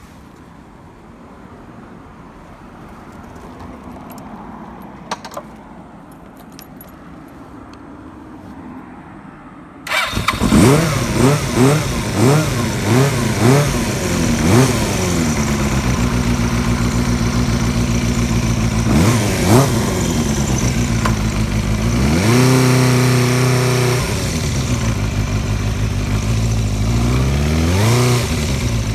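Suzuki Bandit 250 V inline-four motorcycle engine coming in loudly about ten seconds in and being blipped several times in quick succession, then running steadily with a few more revs near the end. Before it, only a faint low hum and a couple of clicks.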